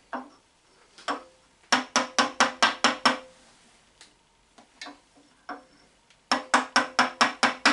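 Two runs of rapid, even clicks, about five a second, from the Atlas 7B shaper's gear train as its shaft is turned by hand, with a few single clicks between.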